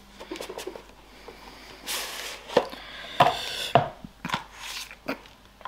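Hands handling card packaging: a series of light taps and knocks, with a brief sliding rustle about two seconds in.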